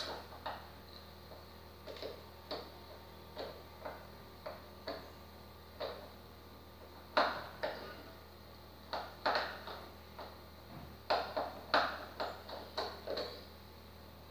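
Screwdriver clicking and scraping on the screws and casing of an old wall switch as it is unscrewed from the wall, in irregular sharp clicks that come closer together and louder about halfway through.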